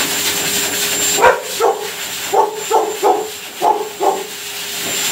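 A yellow Labrador gives about seven short barks in quick succession over the steady hiss and whine of a pet grooming blow dryer.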